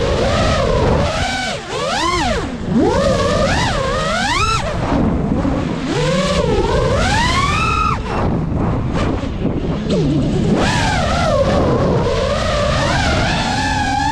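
GEPRC Mark5 FPV quadcopter's brushless motors whining over propeller and wind rush, the pitch swooping up and down sharply as the throttle is punched and cut, with a long rising climb that drops off abruptly about eight seconds in.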